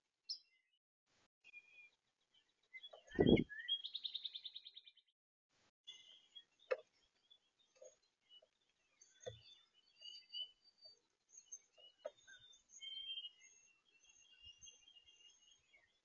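Songbirds chirping and singing around a bird feeder, with a loud knock about three seconds in, straight away followed by a rapid, even trill lasting about a second. Smaller knocks and taps on the feeder tray come between scattered short chirps, and a thin, high song runs near the end.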